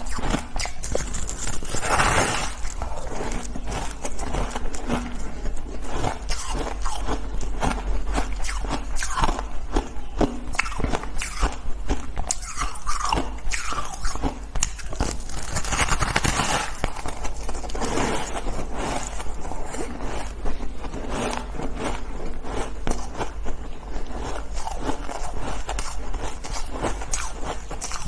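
Close-up crunching of a block of compressed shaved ice being bitten and chewed: a dense, continuous crackle of breaking ice, with louder bites about two seconds in and again around sixteen seconds.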